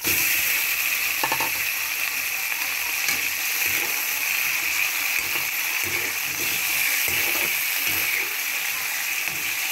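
Raw chicken pieces dropped into hot oil with garlic, onion and ginger in a wok, setting off a loud, steady sizzle that starts suddenly. A metal ladle scrapes and clinks against the wok as the pieces are stirred.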